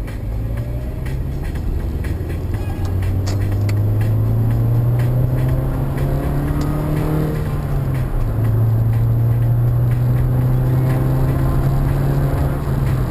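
A vehicle engine running under load, its pitch climbing slowly, then dropping sharply about eight seconds in, as at a gear change, and holding steady after that.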